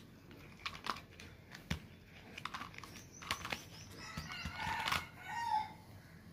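Hard plastic toys being handled and bumped together: a series of sharp clicks and knocks as a toy car is pushed into a plastic toy cow, with a denser clattering rattle about four to five and a half seconds in as the cow is knocked over.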